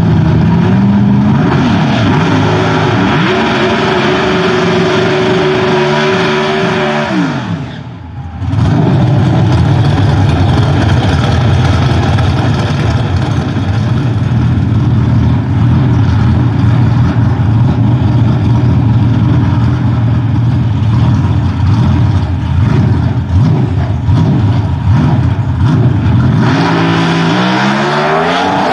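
Pro Stock drag car's 500-cubic-inch V8 revving up and held at high rpm, dipping briefly, then running loud and steady at the starting line. Near the end the engine note climbs again as the car launches.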